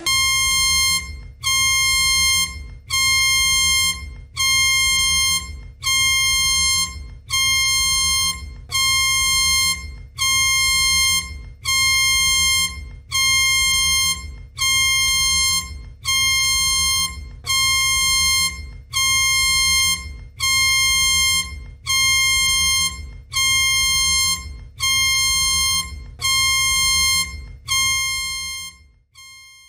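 Emergency alert tone: a high electronic beep, about a second long, repeating every second and a half, some nineteen times, over a low hum. It stops shortly before the end.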